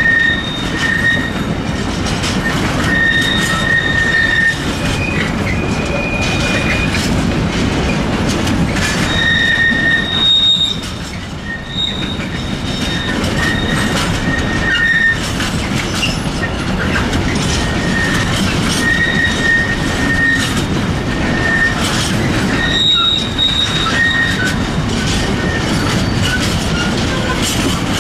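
Long intermodal container freight train rolling past, its wagons' wheels rumbling and clacking over the rail joints. A high, steady squeal comes and goes every few seconds as the wagons go by.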